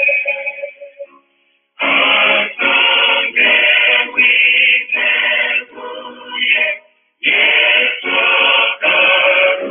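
Choir singing a string of short held notes, with brief pauses about a second in and again about seven seconds in.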